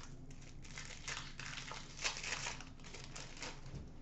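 Foil trading-card pack wrapper crinkling and rustling in the hands as the pack is opened and the cards are pulled out. It is a quick run of short crackles that is busiest about two seconds in.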